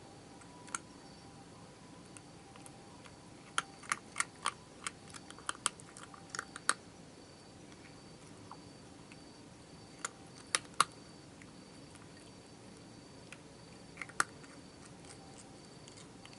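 A cat crunching dry cat food: sharp crunches come in a quick run of about nine, then a few more after pauses, over a faint steady trill of crickets.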